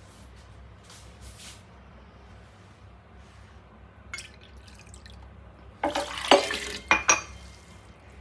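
Water poured from a measuring cup into a Vitamix blender jar, splashing for about a second starting roughly six seconds in, with a short last splash just after. A few faint clinks come before it.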